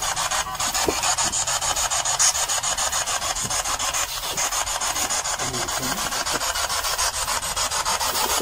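Steady rasping static chopped into even pulses several times a second, the sound of a spirit box radio sweeping through stations during a ghost-hunting question session.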